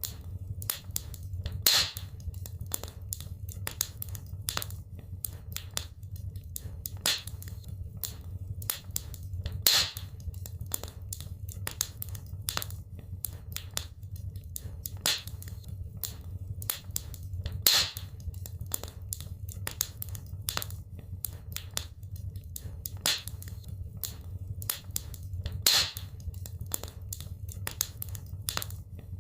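Wood fire crackling in a fireplace: a dense run of small snaps over a low steady rumble, with a louder pop about every eight seconds.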